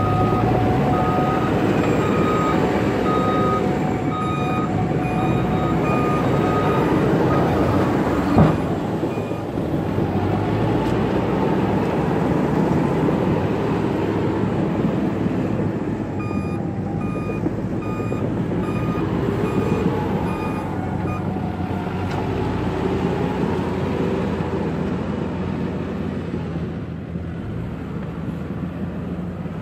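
Cat 432F backhoe loader's diesel engine running under load as it works dirt with its front bucket. Its reverse alarm beeps about once a second while it backs up, in two spells, and there is a single sharp knock about eight seconds in.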